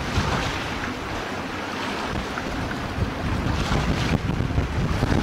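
Wind buffeting the microphone over the wash of the sea: a steady rushing noise, swelling a little in gusts.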